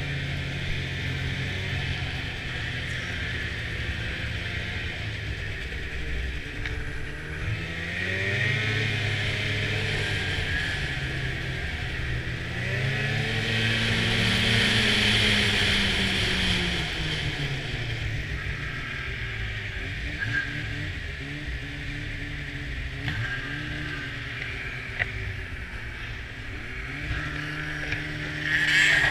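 Snowmobile engine running under way, heard from the seat, its pitch climbing and falling as the rider speeds up and eases off, loudest about halfway through, over a steady hiss. A short, louder rush comes just before the end.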